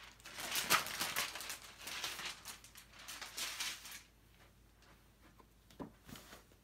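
Sheet of sublimation transfer paper rustling as it is peeled off a freshly heat-pressed T-shirt, for about four seconds. After that, only a few faint handling sounds as the shirt is lifted.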